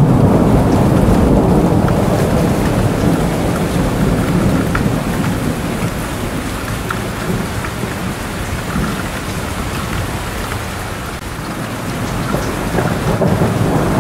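Steady rain with low rolling thunder that eases through the middle and builds again near the end, with scattered drop ticks.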